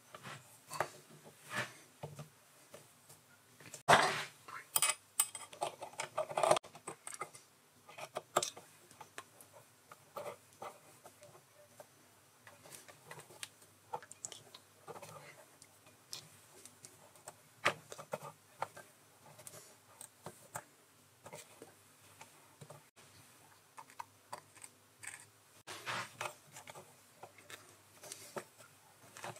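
Scattered small metal clicks and clinks from hands working the Proxxon PD 250/e lathe's three-jaw chuck, its jaws being changed and the chuck turned by hand. The clicks bunch up a few seconds in and again near the end.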